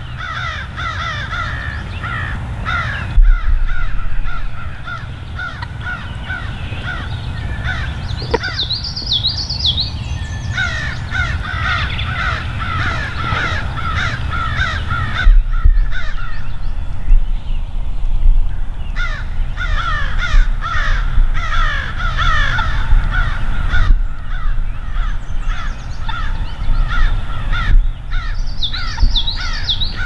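Many birds calling continuously, short calls overlapping one another, with a higher twittering call about eight seconds in and again near the end, over a steady low rumble.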